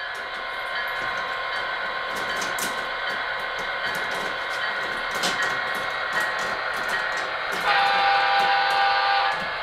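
Model diesel locomotive's onboard sound playing a steady engine sound, with light clicking of wheels on the track. About eight seconds in, its horn sounds for nearly two seconds, louder than the engine.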